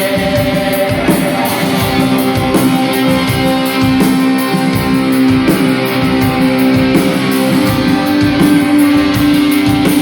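Rock band playing live: loud electric guitars holding sustained notes over a steady beat.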